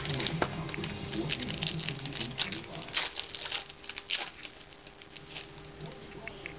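2008 Donruss Threads trading cards and their packs being handled and flipped through: a quick run of small rustles and clicks for about four seconds, then thinning out.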